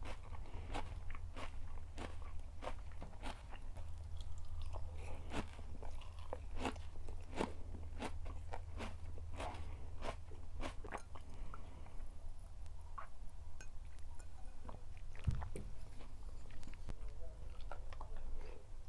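A person biting and chewing food close to the microphone, with many crisp crunching clicks that come thick and fast at first and thin out over the last several seconds, over a steady low hum.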